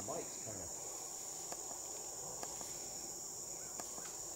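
Steady high-pitched chorus of insects in the woods, with a few faint clicks.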